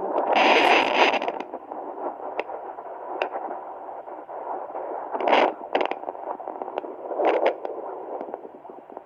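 Hi-Bebe handheld fetal Doppler hissing and crackling through its speaker as the probe is worked over the belly, with louder swishing surges: a long one just after the start, and shorter ones about five and seven seconds in.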